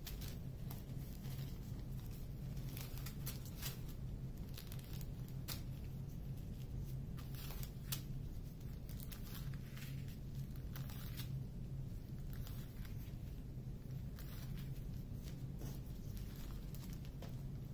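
Small plastic zip-lock bags of diamond painting drills crinkling and rustling as they are handled and sorted, in short irregular crackles over a steady low hum.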